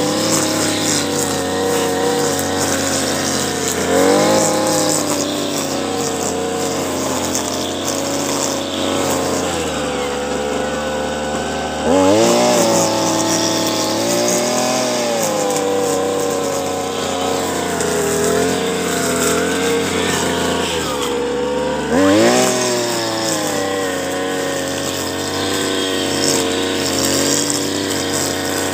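Petrol brush cutter running as it cuts grass. Its engine is revved up sharply about 4, 12 and 22 seconds in, easing back to a steady working speed in between.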